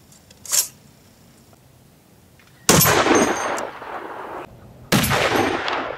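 Two shots from a Barrett M82A1 .50 BMG semi-automatic rifle, each a sudden loud blast followed by a long echo trailing off. The first comes a little under three seconds in and the second about two seconds later. A brief high click comes about half a second in.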